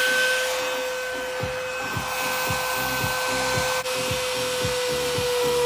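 Die grinder running at speed with a steady high-pitched whine, its bit cutting into wood.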